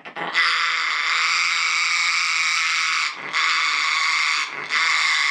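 Pet parrot giving a long, raspy, hissing alarm sound in three drawn-out stretches with short breaks between them: a frightened reaction to the vacuum cleaner.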